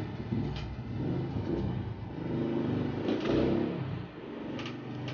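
A motor vehicle engine running and revving up and down, with a few short clicks.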